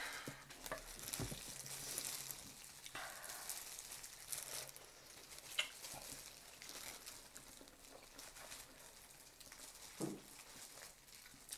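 Eating sounds: wet chewing and slurping of spicy instant noodles and roast chicken, with crackly mouth noise and a few small clicks.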